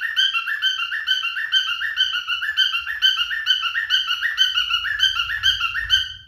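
Male cockatiel whistling a short rising phrase over and over in quick succession, its song stopping abruptly near the end.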